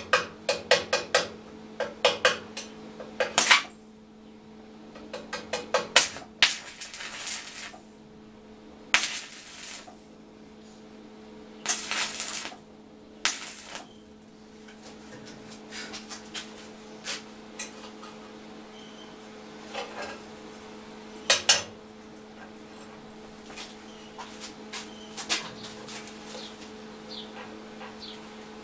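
Stick (arc) welding of small steel pieces on a steel workbench: short spells of crackling arc with metallic clicks and taps in between, over a steady low hum. Rapid metallic tapping in the first second; the longest welding bursts come between about six and fourteen seconds in.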